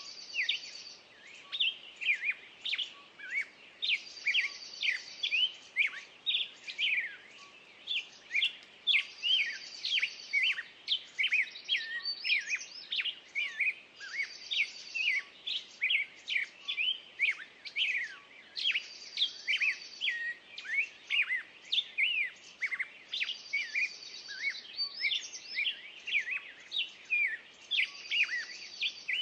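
A chorus of small songbirds chirping and singing, with rapid short notes and a buzzy high trill that comes back about every five seconds.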